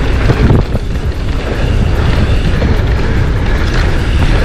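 Steady rumbling wind buffet on a GoPro microphone, over the sound of a mountain bike's tyres rolling fast on a packed-dirt trail.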